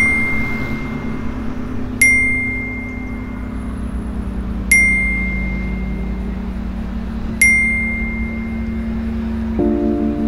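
Smartphone notification chimes, four short bright dings about two and a half seconds apart, each ringing out and fading, over a steady low hum. Near the end a deeper sustained tone comes in.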